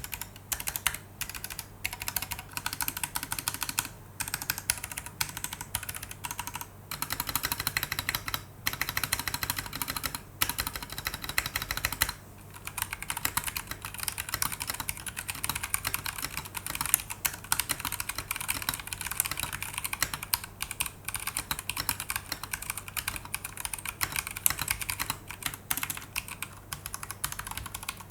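Continuous fast typing on a Voyager68 mechanical keyboard fitted with Gateron Brown tactile switches: a dense stream of key clacks, broken by a few short pauses.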